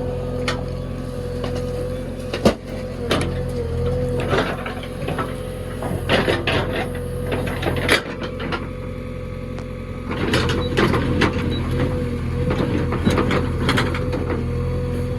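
JCB backhoe loader's diesel engine running steadily with a constant whine, under repeated knocks and clattering from the working machine.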